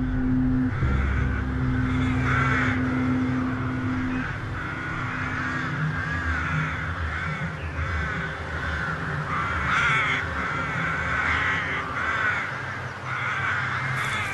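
A flock of crows cawing, many harsh calls overlapping and repeating through the whole stretch. Under them a low steady drone is held for the first few seconds, then stops about four seconds in.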